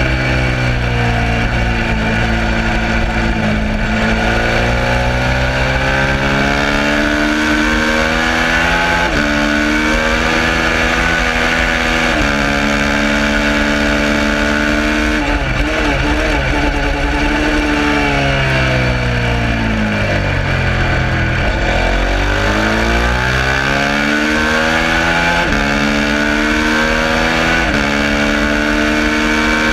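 Suzuki SV650's V-twin engine at race pace, revving up through the gears with a quick drop in pitch at each upshift. About two-thirds of the way through the revs fall away as it slows and downshifts for a corner, then it pulls hard up through the gears again.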